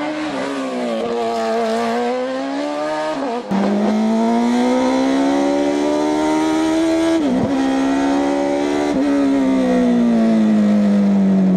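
Fiat 500 hillclimb racer powered by a Suzuki Hayabusa inline-four motorcycle engine, revving high through a hairpin. Then it is heard from onboard, accelerating uphill, with brief cuts in the engine note at gear changes about four and five and a half seconds in.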